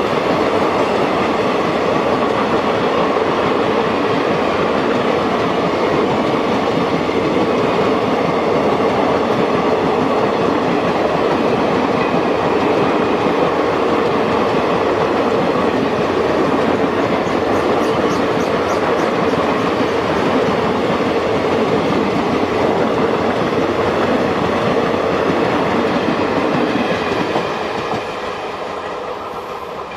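Indian Railways express passenger coaches rolling past close by: a loud, steady noise of steel wheels running on the rails. It falls away in the last few seconds as the end of the train passes.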